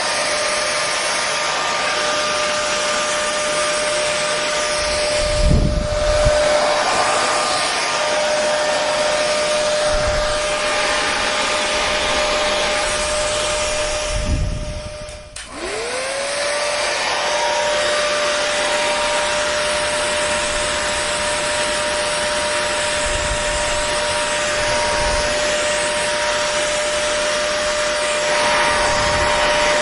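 Hair dryer blowing with a steady rush of air and a motor whine. About halfway through it dips briefly and spins back up to speed, and there are a couple of low thumps.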